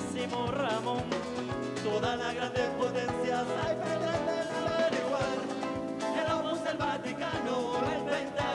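Live rumba catalana played by a band: Spanish guitars strummed in a quick percussive rumba rhythm with a steady beat, and a man singing.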